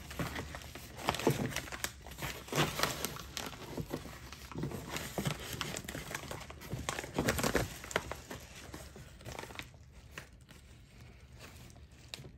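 Padded kraft-paper mailer envelopes crinkling and rustling as they are handled, pulled from a box and opened. The crinkling comes in irregular handfuls and grows quieter near the end.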